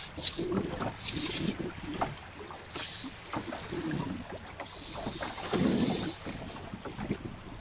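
Choppy saltwater lapping and splashing close by, with wind gusting on the microphone. The gusts swell and fade several times, strongest a little after the middle.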